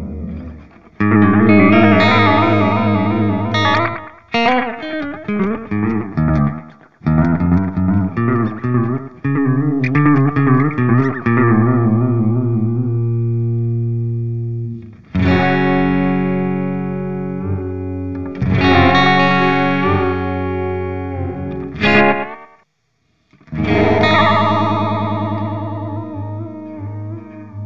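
Clean electric guitar played through an EarthQuaker Devices Space Spiral modulated delay pedal: strummed chords and notes ringing with a wavering pitch wobble and echoes. The playing stops briefly about 22 seconds in, then one more chord rings out.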